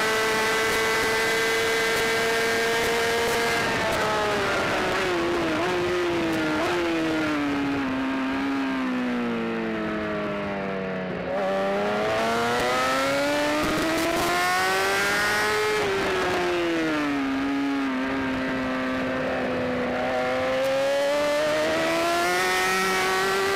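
Onboard sound of a racing superbike's engine: held at a high, steady pitch at first, then falling in steps for several seconds as the bike slows for a corner, picking up again and rising as it accelerates out, with a second dip and rise near the end. A steady rush of wind on the microphone runs under it.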